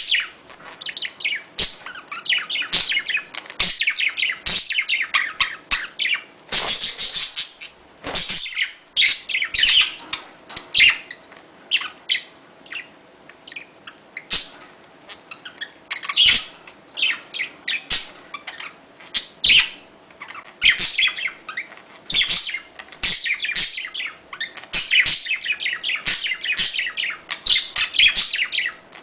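Budgerigars chattering and warbling in fast runs of chirps and clicks, with a harsher, louder squawk about seven seconds in. It is the excited chatter used to bring budgies into breeding condition.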